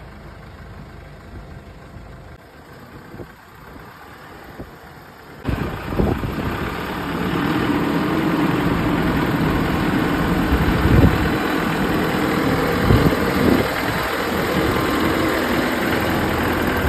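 Wheel loader's diesel engine running low at first, then about five seconds in it suddenly grows much louder, revving and working unevenly as the loader is driven on its test run.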